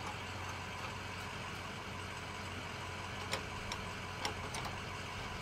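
A steady low hum, with a few faint metallic clicks past the middle as the chain of a trailer's weight-distribution hitch is handled.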